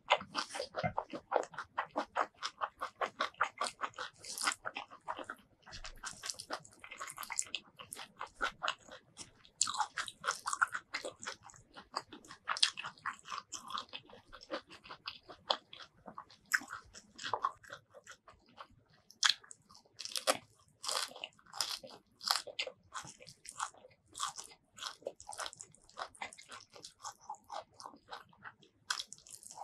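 Close-miked chewing of hand-fed mouthfuls of rice with spicy tomato fish paste curry: rapid, wet mouth clicks and smacks that come in quick runs.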